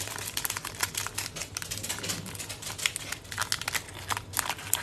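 Hockey card pack wrapper crinkling and crackling in a rapid, irregular series as hands twist and pull at it, trying to tear it open; the pack is stubborn and will not tear.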